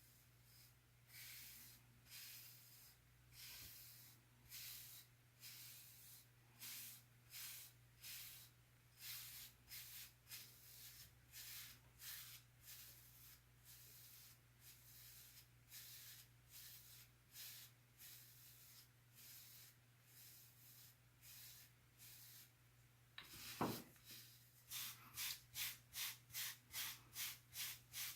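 Wave brush swishing over short hair in repeated strokes, about one or two a second, quickening to about three a second near the end. A single brief sharp sound comes just before the quicker strokes, over a faint steady electrical hum.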